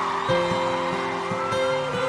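Instrumental break in a pop ballad: guitar playing chords over held background notes, with no singing.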